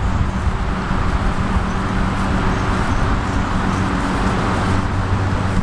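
A steady engine hum running without a break, with wind rumbling on the microphone.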